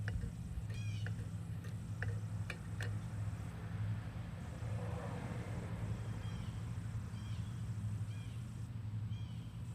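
Kohler engine on a Toro Recycler lawn mower running steadily, a low even hum, with short high chirps repeating every second or so.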